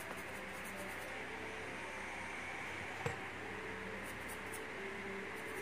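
Small brush scrubbing the surface of a satellite receiver's BGA CPU chip, giving quick clusters of faint scratching strokes over a steady background hiss. One sharp click about three seconds in.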